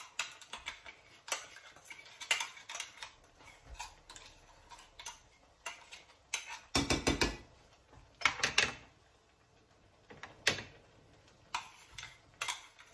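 A metal spoon scraping and tapping inside a stainless-steel mixer-grinder jar as ground coconut paste is worked out of it into a saucepan. It makes a string of light clicks and scrapes, with a few heavier knocks about halfway through and a quick run of taps near the end.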